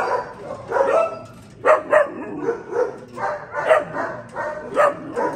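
Doberman puppies barking and yipping in short, repeated calls, about two a second.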